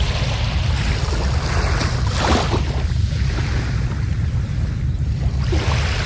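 Small sea waves washing onto a sandy beach: hissing surges of surf that swell and fall back, the loudest about two seconds in and another near the end, over a steady low rumble.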